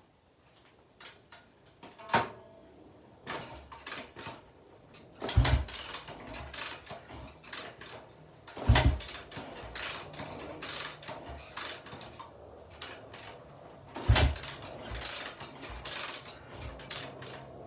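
Honda XR400R dirt bike being kickstarted: three heavy kicks on the kickstarter, each a thump with a clatter of the single-cylinder engine turning over, with small mechanical knocks between them. The engine does not catch.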